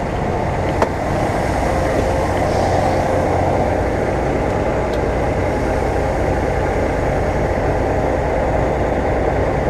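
Semi truck's diesel engine running steadily, heard from inside the cab as the truck creeps along at low speed, with a single sharp click about a second in.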